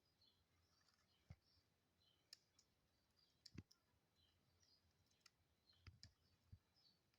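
Near silence broken by a handful of faint, sharp clicks and ticks at irregular intervals.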